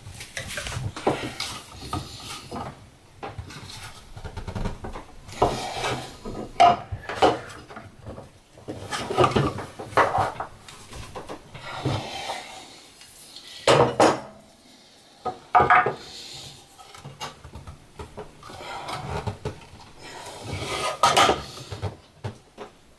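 Thin aluminum sheet being bent by hand in a makeshift clamp-up, a flat piece pushed behind it to raise the flange: irregular metallic clanks and knocks with scraping and rubbing in between.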